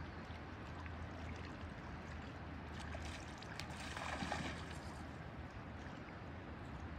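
Steady rush of a shallow river flowing over a gravel bed, with a brief louder rustle and a few ticks about three to four seconds in.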